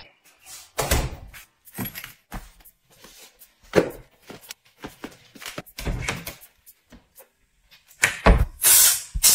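Front door shutting with a thud, then knocks of shoes being slipped off onto a tiled floor and a cabinet door knocking open. Near the end comes a hiss of a pump spray bottle, shoe deodorizing spray.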